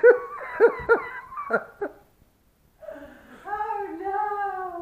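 A woman laughing in short bursts that fall in pitch, then a long, wordless voice that wavers and slowly falls in pitch from about three seconds in.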